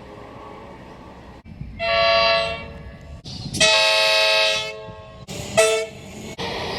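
Comeng electric suburban train's horn sounding three blasts of a steady multi-tone chord: a short one about two seconds in, a longer one in the middle and a brief toot near the end.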